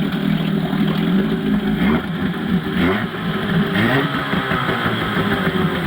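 1997 Suzuki 5 hp two-cylinder two-stroke outboard motor running just after starting, its speed rising and falling a little.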